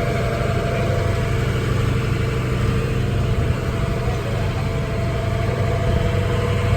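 Engine of the safari park's tour tram running steadily, a constant low drone with a faint steady whine above it.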